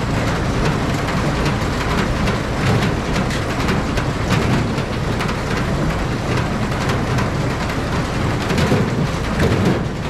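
Farm machinery running: a steady, dense rattling clatter over a low rumble.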